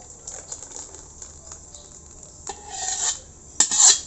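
Thick pasta sauce being scraped out of a cooking pot into a stainless-steel bowl: faint soft sounds, then two short rasping scrapes in the last second and a half, the second the louder.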